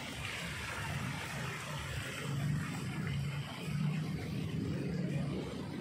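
Steady outdoor background noise with a low rumble that swells and eases a little.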